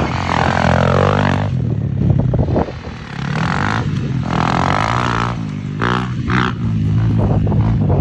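Single-cylinder motorcycle engine running under throttle while riding, its pitch rising and falling with the throttle and dropping off briefly about two and a half seconds in and again about six seconds in.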